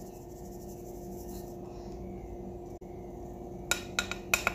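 Dry ingredients being sifted through a mesh sieve: a soft rubbing and rasping, with a few sharp taps on the sieve near the end, over a steady low hum.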